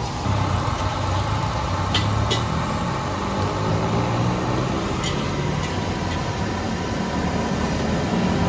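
A motor vehicle's engine idling, a steady low hum, with a few light clicks about two seconds in and again about five seconds in.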